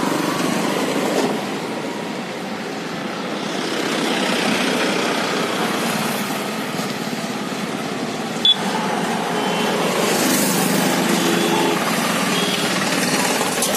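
Road traffic passing: motorcycle and other vehicle engines with tyre noise, a steady mixed rumble that swells and fades. A single sharp click stands out about eight and a half seconds in.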